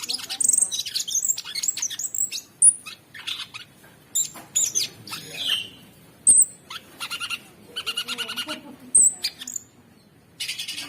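Cucak sungkok songbird singing a fast, varied run of chirps and sharp high whistled notes, broken by short pauses, with a brief silence near the end.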